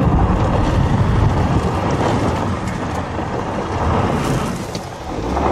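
Strong storm wind blowing across the microphone, a loud, steady rush that swells again near the end.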